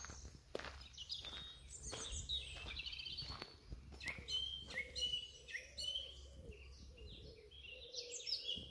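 Several songbirds singing, with overlapping short chirps and quick trilled phrases.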